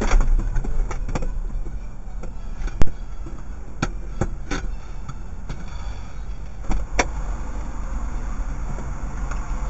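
Steady low rumble of a stopped car and the road around it, with a scatter of sharp clicks and knocks, the loudest about three seconds in and two close together near the seven-second mark.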